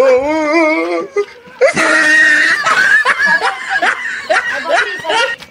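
A wavering, drawn-out vocal sound in the first second, then loud laughter of several voices at once from just under two seconds in.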